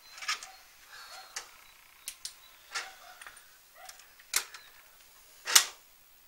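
Scattered light clicks and knocks from handling, with the loudest, a sharp click, about five and a half seconds in.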